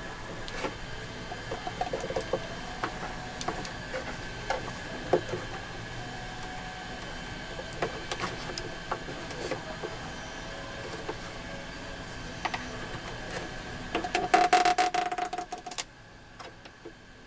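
Hands working on a salvaged plastic speaker unit to take it apart: scattered clicks and taps over a faint steady whine, with a short burst of rapid rattling clicks near the end that cuts off suddenly.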